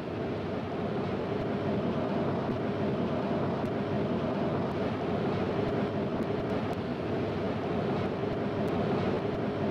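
Washington Metro subway train running, a steady even noise with no clear change.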